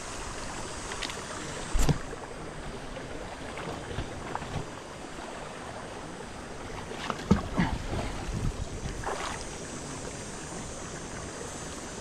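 Water sloshing and splashing as someone wades knee-deep up a shallow river over slippery stones, with the river's steady rush underneath. A few louder splashes stand out about two seconds in and again around seven to eight and a half seconds in.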